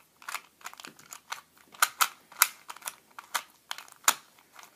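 Plastic Rubik's Cube 3x3 being turned by hand: a rapid, irregular run of sharp clicks and clacks, about three or four a second, as its layers are twisted.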